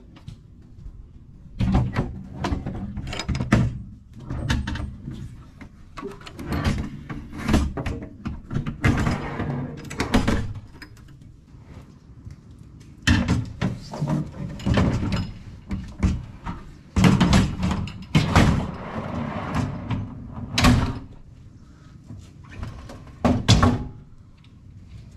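Steel drawer trays being slid into a set of Maxi Trac 4WD cargo drawers and pushed shut: repeated metal clunks and knocks with short scraping runs along the drawer runners.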